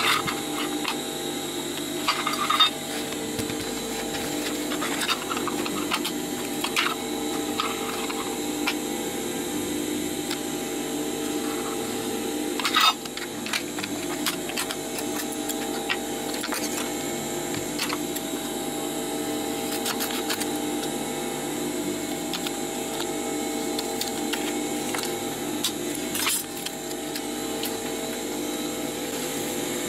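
A steady machine-like hum with several held tones, under scattered light clicks and taps as a metal tin, a clear plastic sheet and a marker are handled on the work table. The sharpest taps come a few seconds in and a little before halfway.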